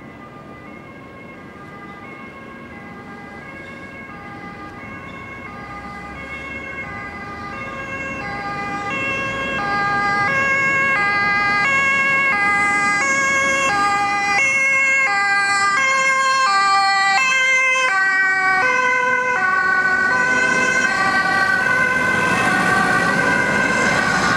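Dutch ambulance two-tone siren alternating between a high and a low note about every half second. It grows louder over the first ten seconds as it approaches, then stays loud. Vehicle and tyre noise rises near the end as it passes close by.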